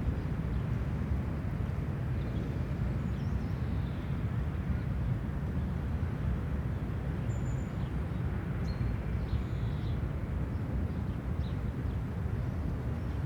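Outdoor park ambience: a steady low rumble with a few faint, short bird chirps scattered over it.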